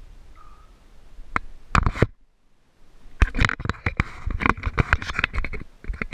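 Close handling noise from gear and clothing against the camera: a short cluster of sharp knocks and clicks, then a dense run of knocks, clicks and rubbing from about three seconds in.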